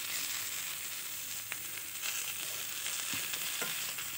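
Potato and pea mixture sizzling in a hot kadhai, stirred with a metal spatula that scrapes and taps the pan a few times.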